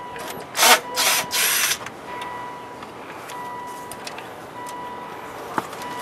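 Cordless screwdriver whirring in three short bursts, backing out a trim screw, followed by a single sharp click near the end.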